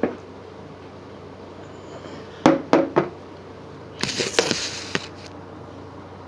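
Handling noise from a phone camera being moved around: a click, three quick sharp knocks about two and a half seconds in, then a short burst of rustling and scraping about four seconds in, over a low steady room hum.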